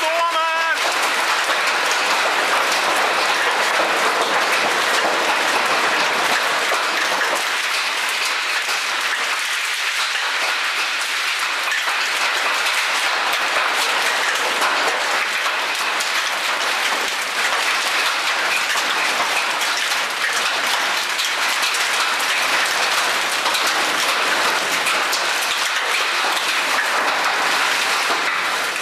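Heavy rain mixed with hail falling in a thunderstorm core, a dense, steady clatter of drops and hailstones striking pavement and ground.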